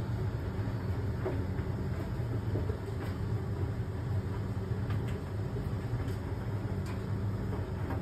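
Fisher & Paykel ED55NZ clothes dryer running: a steady low hum from the motor and turning drum, with a faint light click every second or two.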